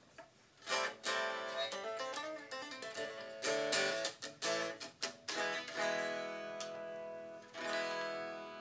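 Epiphone Korina Explorer solid-body electric guitar played unplugged: chords strummed and picked, the bare strings heard acoustically without an amplifier. It starts about a second in, and near the end a couple of chords are left to ring out.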